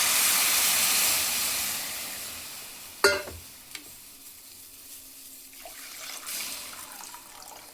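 Water and tamarind water hitting a hot pan of tempered spices, a loud sizzling hiss that dies down over several seconds as the liquid cools the pan. There is a single sharp knock about three seconds in.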